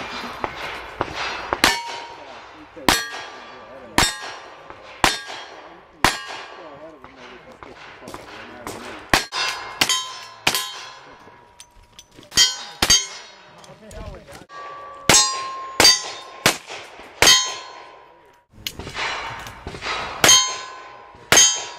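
A string of about twenty gunshots, mostly about a second apart with a couple of short pauses, each hit followed by the clang and ring of steel plate targets.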